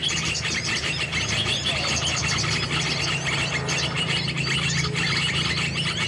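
Many small birds chirping and twittering densely and without a break, over a steady low hum.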